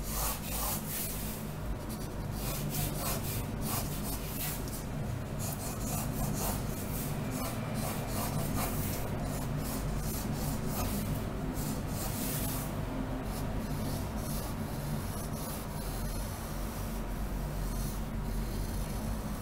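Pencil lead scratching across paper in a run of quick strokes, drawing straight construction lines, with short pauses between strokes.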